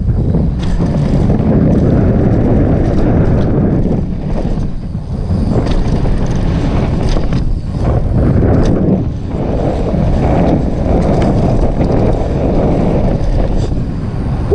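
Wind buffeting a helmet camera's microphone on a downhill mountain-bike run, with scattered clicks and rattles from the bike over rough ground.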